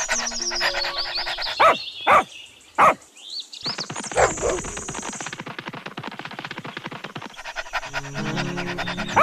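A dog-barking sound effect: four short barks in the first half, over background music.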